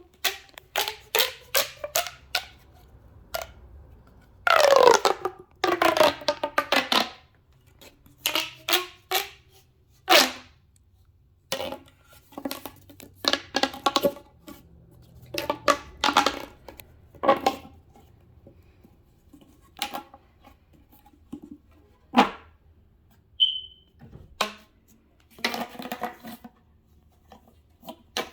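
A child making a fast string of short noises: squeaks, pops and clicks, some with a bending pitch. A longer one about five seconds in falls in pitch.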